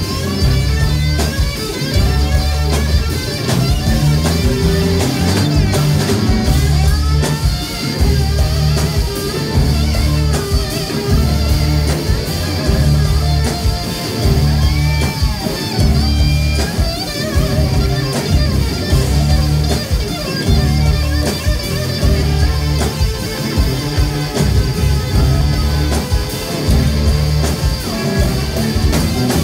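Rock band playing live in an instrumental section: electric guitar playing a lead line with bent notes over heavy bass and drums.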